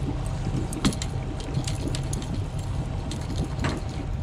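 Boat engine idling steadily, with a few sharp clicks and taps of handled gear, the loudest about a second in.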